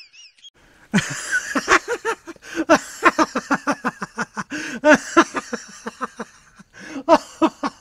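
A rapid string of short pitched vocal sounds, several a second, starting about a second in, with a short pause near the end.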